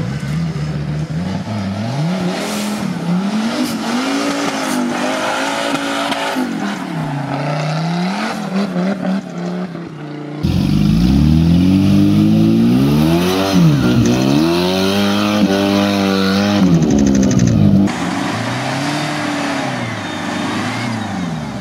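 Off-road trial 4x4 engines revving up and down under load as the vehicles climb and crawl through the course. The sound changes abruptly twice as the footage cuts between vehicles, and the middle stretch, from about ten to eighteen seconds in, is louder.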